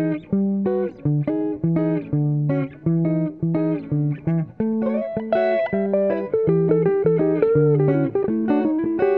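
Background guitar music, short plucked notes over lower notes at a steady rhythm.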